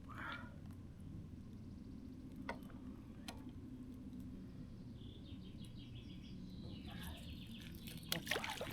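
Low, steady wind rumble with birds chirping, a run of quick high chirps in the second half, and a few light clicks near the end.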